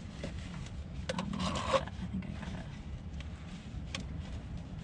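Handling noise from a cut-down plastic soda bottle being used as an oil-drain funnel: a short rustling scrape about a second in, then a few light clicks, over a low steady rumble.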